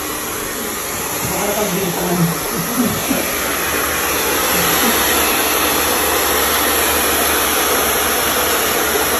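Handheld hair dryer blowing steadily while a stylist dries a man's short hair, getting a little louder over the first few seconds.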